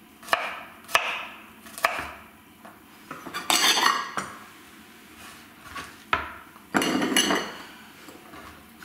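Chef's knife slicing garlic cloves on a wooden cutting board: three sharp knocks of the blade on the board, then a few longer scraping, rustling sounds as the garlic pieces are moved about on the board.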